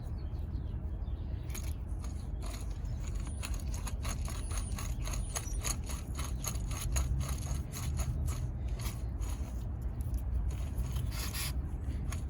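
Worn front hub bearing assembly from a Chevrolet Cobalt, off the car and spun by hand, grinding and rasping in a rapid run of rough clicks: the failed bearing behind the car's grinding noise.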